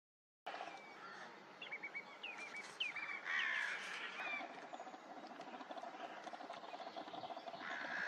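Birds calling over faint outdoor noise: a string of short high chirps in the first few seconds, then a fast, even run of lower clipped notes lasting about three seconds.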